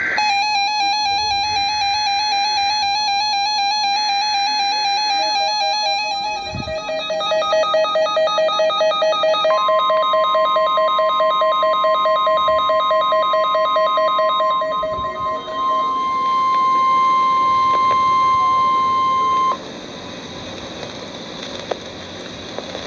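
NOAA Weather Radio Emergency Alert System tones. Raspy digital header data bursts and warbling alert tones come first; about nine seconds in, the long steady warning alarm tone starts and holds for about ten seconds. It cuts off abruptly and leaves radio hiss, marking the start of a flash flood warning broadcast.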